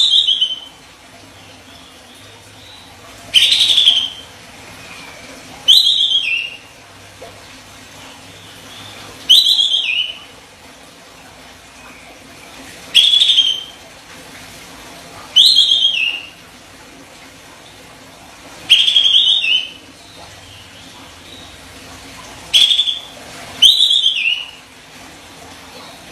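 A kapas tembak bulbul giving loud, sharp, high-pitched calls in short bursts, repeated about every two to four seconds, nine times in all.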